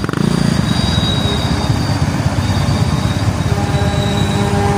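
Motorcycle engine idling amid road traffic: a steady, loud low rumble. A humming tone joins about three and a half seconds in.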